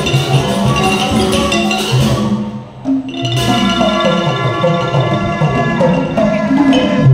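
Thai piphat mon ensemble playing, its Mon-style gong circles and other pitched percussion ringing out over a steady pulse. The playing thins and drops in level briefly about two and a half seconds in, then picks up again.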